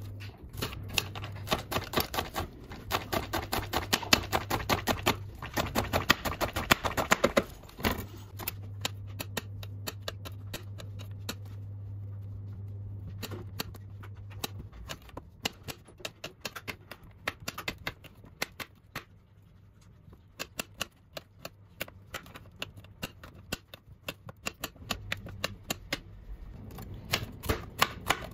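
Kitchen knife chopping vegetables (scallions, zucchini, yellow bell pepper) on a hard glass cutting board: sharp clicking strokes in quick runs with short pauses between them. A low hum runs under parts of it.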